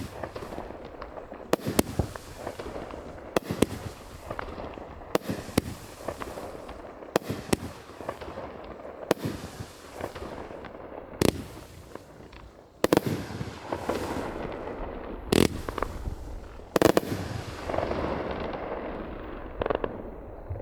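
A 24-shot fireworks cake with 1.2-inch tubes firing shot after shot: sharp bangs every second or two, often in close pairs, with a hissing haze between them that grows denser in the last few seconds.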